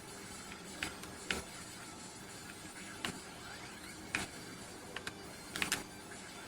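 Faint video-game audio from a TV: quiet game music with a few sharp clicks and short blips, two quick pairs of them near the end, and a faint rising chirp.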